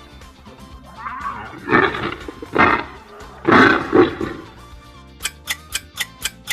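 Hippopotamus calls: four loud, rough bellowing grunts in two pairs. From about five seconds in, a quiz countdown timer ticks rapidly, about four ticks a second.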